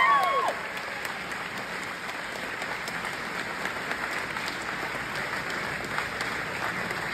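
Audience applauding steadily after a name is called. A high whistle-like tone at the very start ends about half a second in.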